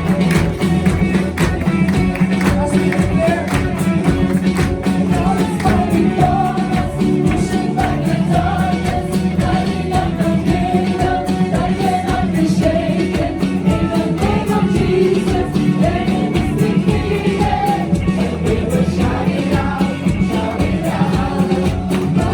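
Contemporary gospel worship song played by a live band with a steady beat, with several voices singing together over it.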